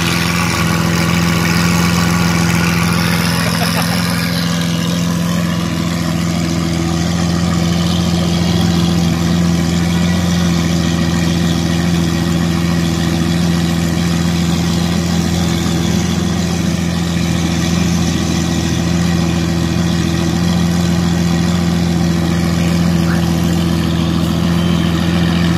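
Lamborghini Aventador's V12 engine idling steadily, an even low hum with no revving.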